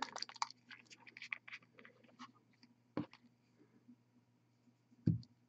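Small clicks and taps from handling hobby paint supplies, quick and close together in the first couple of seconds, then a single sharp click about three seconds in and a louder knock near the end.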